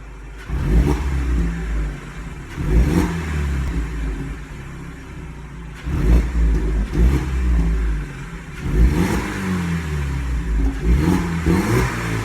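Stock BMW 116i E87 four-cylinder petrol engine on its original exhaust, revved about five times, each rev rising in pitch and falling back, with a steadier lower note between revs.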